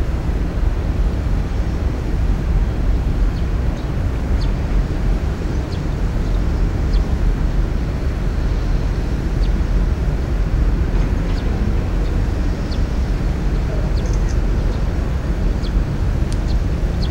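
Steady low rumble of outdoor background noise, with faint short high chirps scattered through it.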